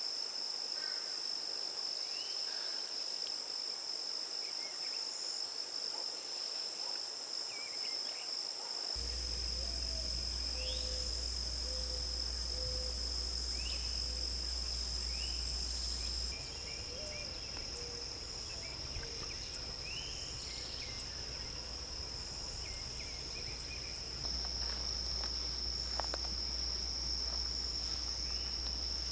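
Insects trilling in a steady, unbroken high-pitched drone, with a scattering of short bird chirps over it.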